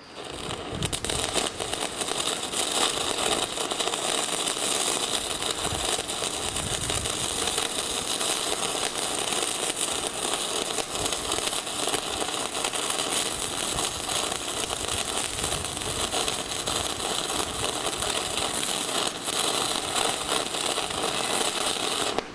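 Shielded metal arc (stick) welding: the electrode's arc crackling steadily, run with the welding machine's heat turned down. It starts at once and cuts off just before the end.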